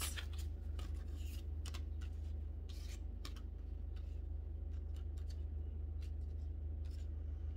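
Tarot cards being handled: soft clicks, slides and rustles as cards are fanned through in the hands and touched on a wooden table, over a steady low hum.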